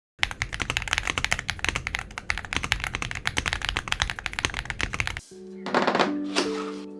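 Fast typing on an Ajazz AK980 mechanical keyboard with Ajazz Gift switches and double-shot PBT keycaps: a quick, even run of keystrokes. The typing stops about five seconds in, and music with held notes and two whooshing swells starts.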